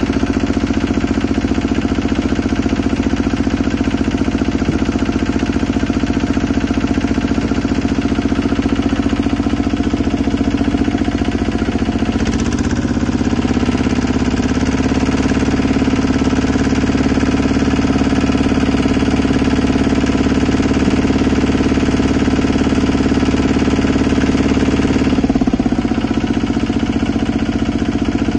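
Small engine of a well-drilling rig running steadily with a knocking beat. Its note shifts about twelve seconds in and shifts back near the end.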